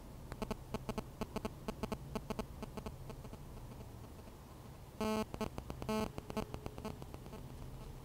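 Stuttering electronic buzz from an old Nokia mobile as it dials out: an irregular run of short buzzing pulses, then two longer buzzes about five and six seconds in. This is the typical interference of a GSM phone transmitting while it sets up a call.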